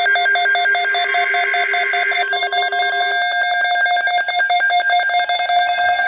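Several NOAA weather alert radios sounding their alert alarms together for a severe thunderstorm watch: a rapid pulsing electronic beep over steady tones. A lower tone drops out about halfway through.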